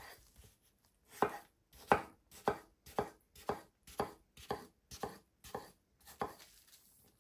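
Knife cutting a cucumber into chunks on a bamboo cutting board: a steady run of about ten sharp strikes of the blade through the cucumber onto the wood, about two a second, starting about a second in and stopping shortly before the end.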